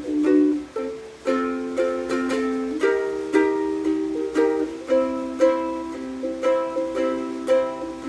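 Concert-size all-acacia ukulele (Tribo TR-07 Niño) playing chords in a steady rhythm, freshly struck about twice a second, unamplified in a small room.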